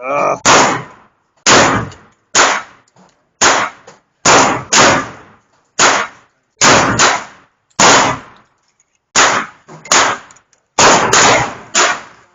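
Airsoft 1911 pistols firing a string of about sixteen sharp shots at uneven intervals, sometimes in quick pairs, each crack trailing off in a short ringing decay.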